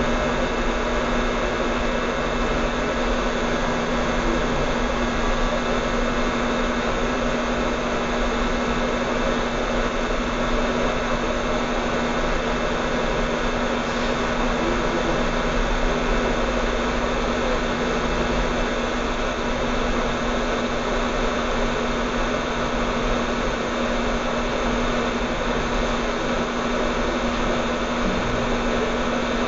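Hot air rework station blowing steadily: a constant rush of air with a steady hum underneath, as a capacitor is reflowed back onto a laptop motherboard.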